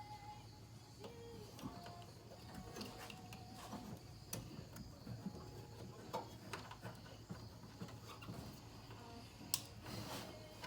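Faint clicks and rattles of a plastic wiring connector and harness being handled and fed into place, with a sharper click near the end as the cooling-fan connector is plugged in.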